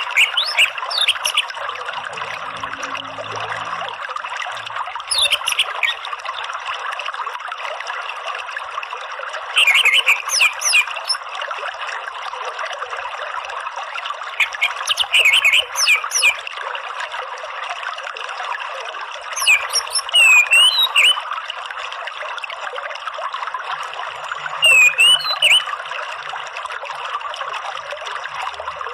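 Orange-headed thrush giving short bursts of rapid, high chirping calls (its 'ngeriwik' chatter), repeating about every five seconds over the steady rush of flowing stream water.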